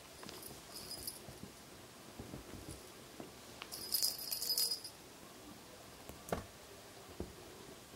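A small bell on a cat toy jingling in short bursts, loudest about four seconds in, while an exotic shorthair kitten pounces and scuffles on fabric; a single sharp tap comes about six seconds in.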